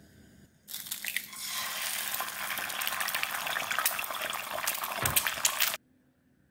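An egg frying in hot oil in a nonstick pan: the sizzling and spattering starts abruptly about a second in and carries on as a dense crackle, with one dull knock near the end, then cuts off suddenly.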